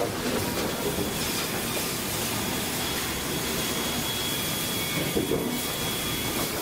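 Industrial machinery running steadily: a continuous clattering rumble and hiss with a faint high whine.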